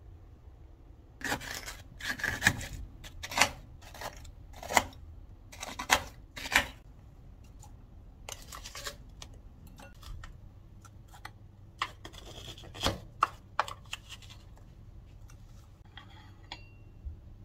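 Frozen watermelon sorbet being scraped into icy flakes in a ceramic dish: a run of rough, gritty scrapes about one a second, then lighter scrapes and taps further on.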